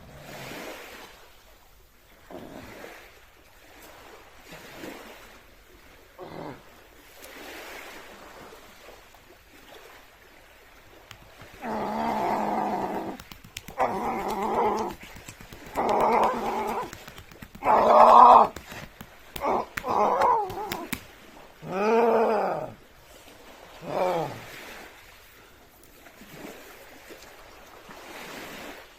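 A man breathing hard with exertion in a series of puffs. Then, about halfway through, come roughly a dozen loud strained vocal cries, about one a second, the later ones falling in pitch.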